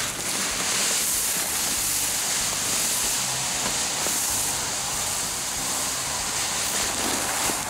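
Dry humic acid granules (Humic DG) pouring in a steady stream from the bag into the hopper of a broadcast spreader: a continuous even hiss of granules falling onto the growing pile.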